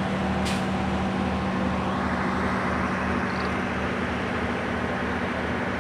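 Vehicle engine running steadily, a constant low hum with a pulsing rumble underneath, and a brief hiss about half a second in.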